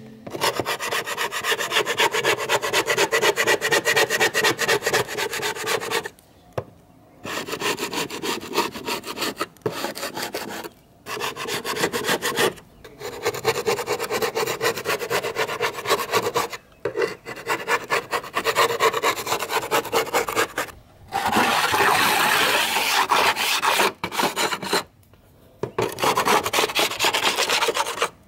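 Flat metal scraper scraping caked dirt and grime off a window sill in quick rasping strokes. It comes in runs of a few seconds with brief pauses between them.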